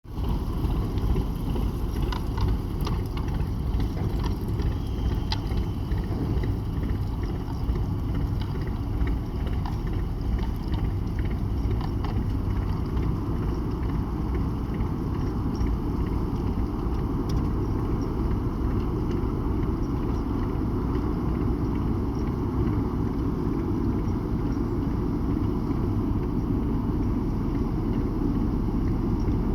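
Steady low rumble of the ferry Taiko's engines as it leaves port, with a few faint clicks in the first dozen seconds.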